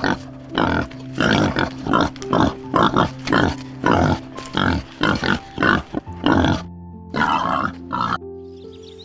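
Pig grunting in short, rapid bursts, about two a second, over background music with steady held notes. The grunting stops near the end, leaving only the music.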